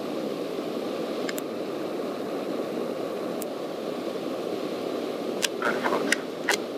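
Steady cabin noise of a single-engine Cessna in cruise flight: the engine and propeller heard as an even rushing hiss. A few sharp clicks come near the end.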